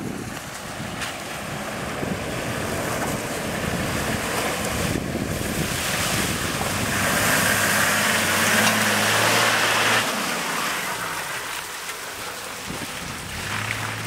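A Toyota Land Cruiser 4x4 fording a shallow stream: its engine hums under load as water splashes and surges around the wheels, building up to a loud peak about two-thirds of the way through and then cutting off suddenly. Wind buffets the microphone throughout.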